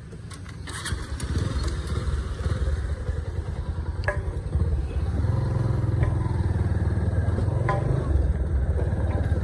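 Bajaj Pulsar's single-cylinder motorcycle engine running as the bike rides off over gravel, getting louder about a second in. A couple of sharp clicks cut through partway.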